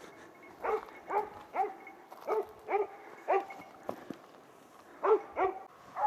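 Hunting dog barking repeatedly: a run of six barks about half a second apart, a pause, then three more near the end. It is baying at a wild boar it has found and is holding in cover.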